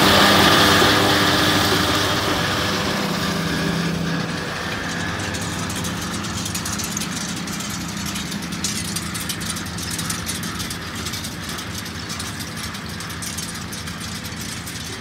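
John Deere 6215 tractor engine and its disc mower running while cutting clover, loud close by and fading steadily over the first few seconds as the machine pulls away. After that, a quieter steady hum of farm machinery working further off.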